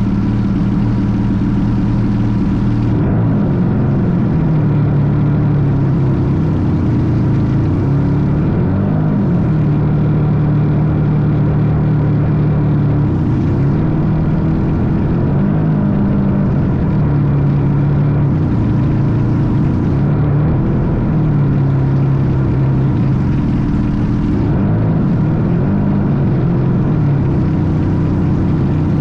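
A radio-controlled model airplane's engine and propeller running, heard from a camera mounted on the plane. Its pitch drops and rises again several times, about every few seconds.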